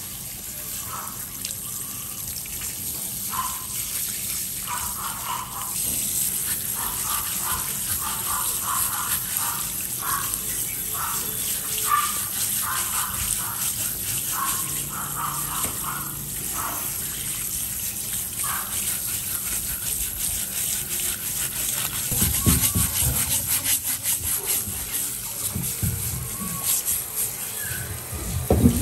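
Tap water spraying from a sink spray head onto conch meat as it is rinsed and scrubbed with a brush, with a run of short scrubbing strokes through the first half. Several dull knocks come in the last few seconds.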